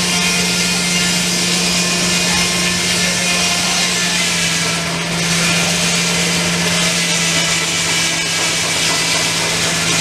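Circular sawmill driven by a Keck Gonnerman steam traction engine, running with a steady hum under a wash of sawing noise, briefly dipping about halfway through.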